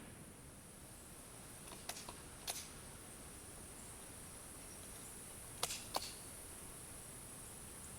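Short metallic clicks of a Mosin-Nagant bolt being worked between shots: three clicks close together about two seconds in, then two sharper clicks near six seconds. A steady faint high-pitched whine runs underneath.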